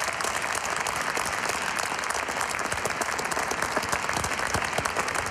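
Applause from a small seated audience: many hands clapping at an even level.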